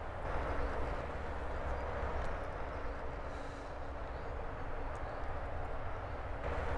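Steady outdoor background rumble of distant traffic, an even low noise with a faint hum, changing slightly in tone near the end.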